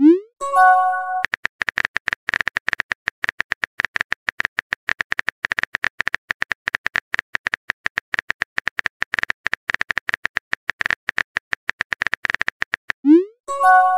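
Simulated phone-keyboard typing from a texting-story app: a rapid, uneven run of short key clicks. At the start and again about 13 seconds in, a message-sent sound breaks in: a quick rising swoosh followed by a short chime of several notes.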